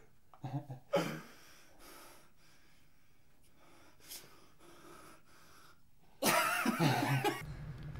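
A person breathing close to the microphone: faint breaths for several seconds, then a loud, rasping breathy outburst about six seconds in.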